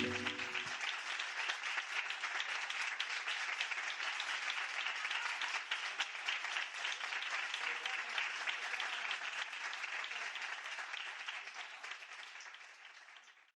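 Audience applauding as the last held notes of the backing music die away in the first second; the clapping carries on evenly, then thins and fades out near the end.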